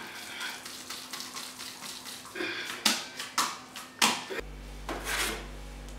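Short taps and knocks of a green plastic bowl being turned and handled with a ball of dough in it, a few sharper knocks around the middle. A steady low hum sets in suddenly about two-thirds of the way through.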